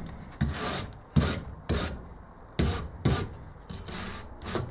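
Hand wire brush scrubbed back and forth over a crusted metal piece, scraping off the residue: a series of short scratchy strokes, about two a second, irregularly spaced.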